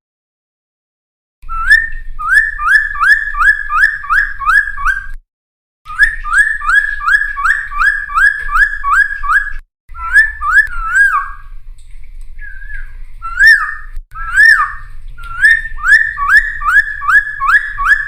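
Cucak timor (friarbird) singing steadily: runs of rapid repeated slurred whistled notes, about three a second, broken by short pauses, with a low hum under the song.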